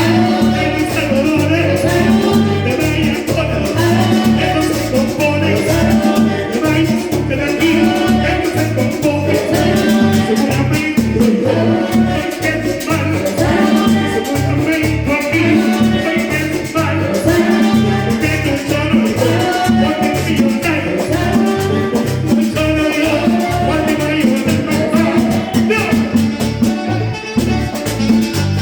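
Latin dance music with a steady, repeating bass line under melodic instruments.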